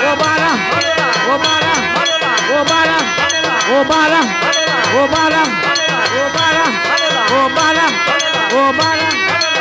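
Live Indian folk theatre music: a melody line of swooping, arching phrases over a fast, steady beat of drum with rattling jingles.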